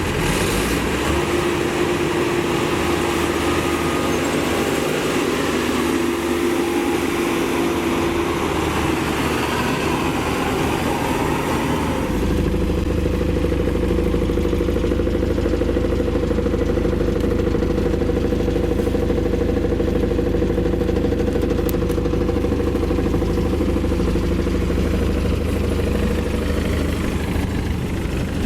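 Maxxi Bimo 102 rice combine harvester's engine running steadily under working load. About twelve seconds in, the sound changes abruptly to a steadier, deeper engine hum.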